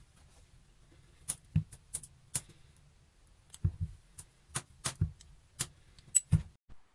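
Small cast-iron table vise being handled, with about a dozen sharp, irregular metal clicks and knocks as its screw handle is worked.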